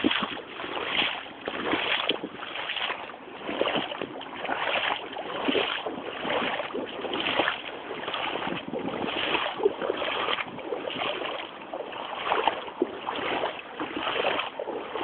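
Wellington boots wading through shallow floodwater, a splash and slosh with each stride, about one step every three-quarters of a second.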